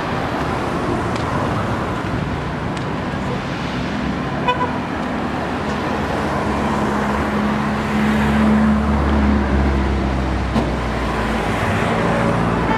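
Street traffic: cars running by, with a louder engine rumble as one passes close about eight to nine seconds in. A short beep sounds about four and a half seconds in.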